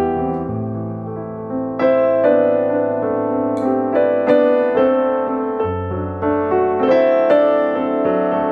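Background piano music: a slow melody of sustained notes.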